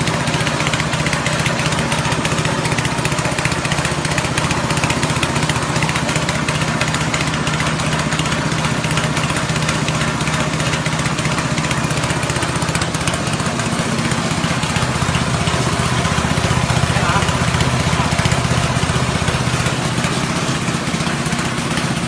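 Small 6.5 hp petrol engine driving a rice-husk grinding machine, running at a steady speed with an even hiss from the machine over the engine note.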